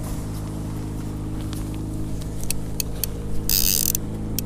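Boat engine running steadily at trolling speed, a constant low hum. A few sharp clicks come in about halfway through, and a short burst of hiss about three and a half seconds in.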